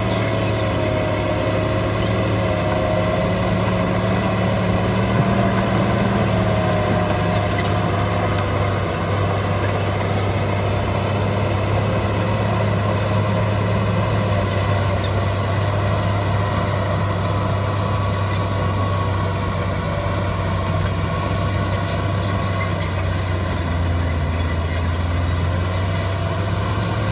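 Shantui DH17 bulldozer's diesel engine running steadily under load, with a strong low hum and only slight changes in pitch.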